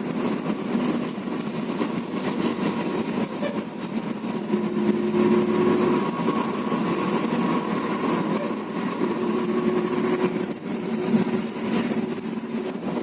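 Bus engine running steadily, with a constant low hum and a few steady tones over it.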